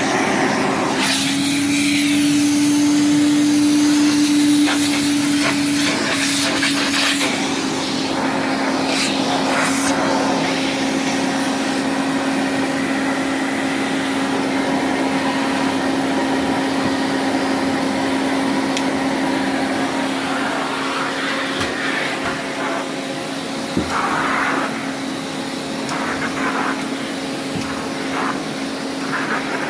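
1978 Hoover 427 vacuum cleaner running steadily during a suction test, a continuous motor hum and whine. The motor's pitch rises slightly and gets louder about a second in, then settles back around seven seconds in. A few light knocks and clicks come from the hose and machine being handled.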